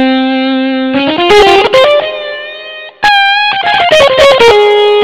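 Korg Pa700 arranger keyboard playing a distorted electric-guitar lead voice: a held note, a fast rising run of notes, then a high note that steps back down to a long held note.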